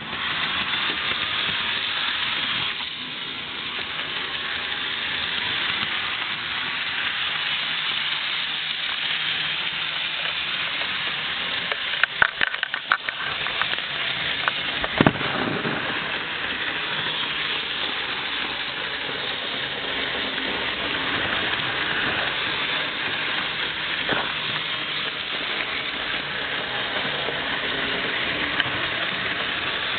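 Bachmann HO-scale model train, a Union Pacific EMD F9 diesel pulling two freight cars and a caboose, running around a small circle of sectional track: a steady whirring hiss from its electric motor and wheels on the rails. There is a short cluster of clicks a little before halfway, and one sharp knock soon after.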